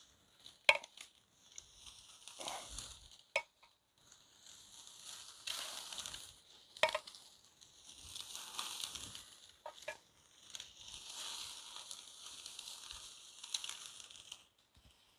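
Oily chicken wings sizzling on a hot grill, the hiss swelling and fading in waves as the fat drips and flares up, with a few sharp clicks.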